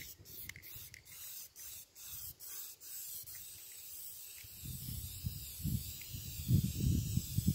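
Aerosol spray paint can hissing as touch-up paint is sprayed, first in short squirts and then as a steady spray from about three seconds in. An irregular low rumble from wind buffeting the microphone rises in the second half and is the loudest part.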